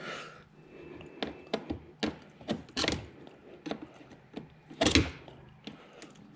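Scattered clicks and knocks of hand tools and plastic air-intake parts being worked while loosening the intake hose clamps, with the loudest knock about five seconds in.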